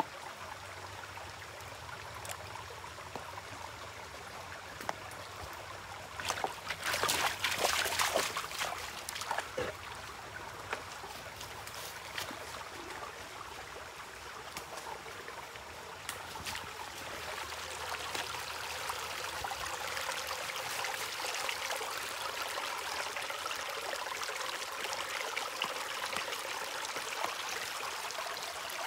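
Shallow woodland creek trickling and flowing over stones and leaf litter, a steady water sound. About six to nine seconds in, a flurry of sharper, louder clicks and crackles rises over it.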